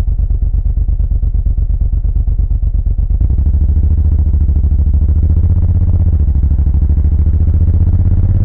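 Suzuki VL1500 Intruder's big V-twin engine and exhaust running at low revs with even, lumpy pulses. About three seconds in it gets louder and pulls, its pitch rising slowly as the bike accelerates.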